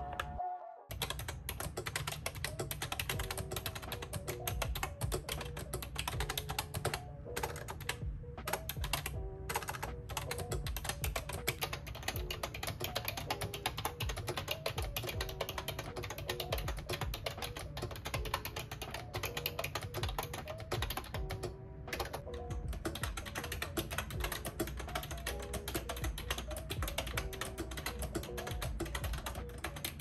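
Continuous fast typing on a YUNZII ACTTO B303 typewriter-style mechanical keyboard with round retro keycaps: a dense stream of key clacks starting about a second in, with a few brief pauses.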